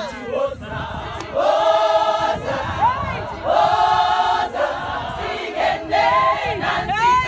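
A large group of women singing together in a choir, two long held notes, with short rising calls between the phrases.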